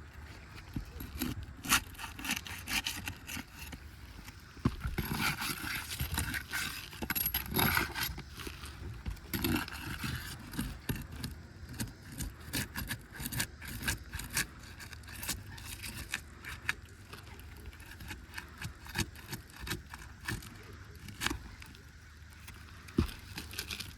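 Asphalt roof shingles being scraped and pried loose by hand, with irregular scraping and many short clicks and knocks, busiest for a few seconds after the start.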